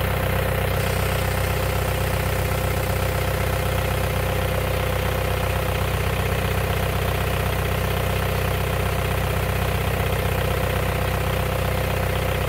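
Volkswagen TDI turbo-diesel engine, fitted into a VW bus, idling steadily.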